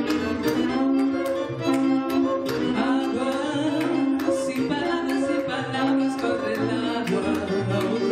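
Two conch shell horns blown together in long held tones over a plucked double bass line, with light percussive clicks keeping time.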